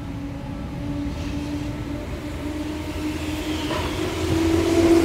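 Seibu 101 series electric train approaching along the platform, growing steadily louder as it nears. A steady hum runs under the rumble and rises slightly in pitch.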